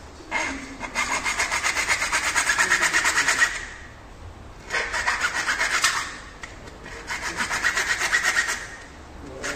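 Hand saw cutting through plastic cable duct with quick back-and-forth strokes, in three bouts separated by short pauses.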